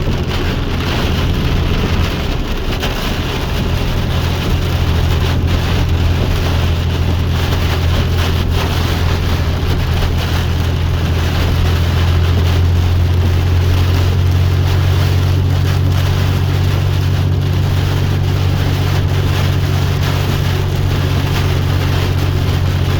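Steady low drone of a vehicle engine and road noise, heard from inside a moving vehicle, with an even hiss of rain or wind over it.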